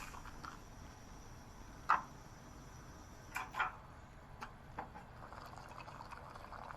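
A few faint, short clicks and light taps, about five spread over several seconds, over a low steady hiss.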